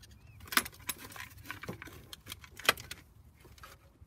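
A few sharp metallic clicks and clinks from a wrench and socket extension tightening a bolt on the alternator's aluminum mounting bracket. The two loudest clicks come about half a second in and just before three seconds.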